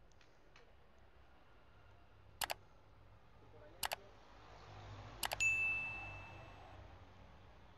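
Sound effects of a subscribe-button animation: three quick double mouse clicks, then a single bell ding that rings out and fades over about a second.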